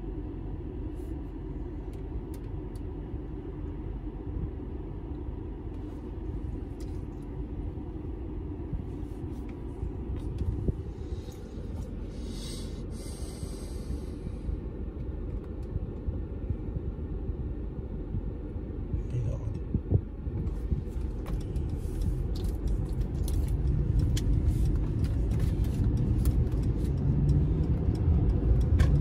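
Low rumble of road and engine noise inside a moving car's cabin, growing louder in the last few seconds, with a brief hiss about twelve seconds in.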